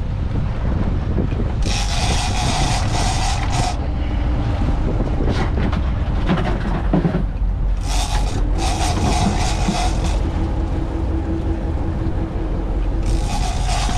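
Sportfishing boat's engine running steadily, with wind on the microphone. Three high whirring bursts, each about two seconds long, come about two, eight and thirteen seconds in.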